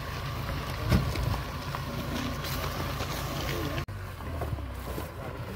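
Off-road 4x4's engine running low and steady as it climbs a steep slope, with wind on the microphone. There is a short knock about a second in, and the sound breaks off abruptly just before four seconds in before the rumble carries on.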